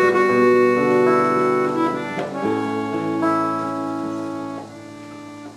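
Chromatic button accordion playing slow held chords, moving to a new chord twice, the last one fading near the end: the closing bars of a song.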